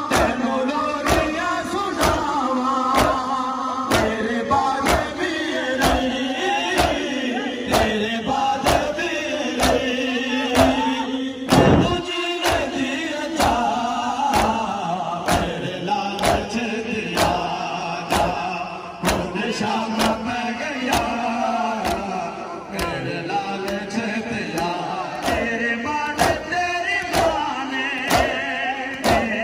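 Male voices chanting a Shia noha, carried by the steady beat of open-handed matam, many hands slapping bare chests in unison. One louder thump stands out near the middle.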